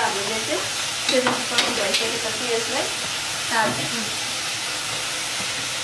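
A spoon stirring and clinking against a metal pot of rice boiling in water, with a couple of sharp knocks a little after the first second, over a steady hiss.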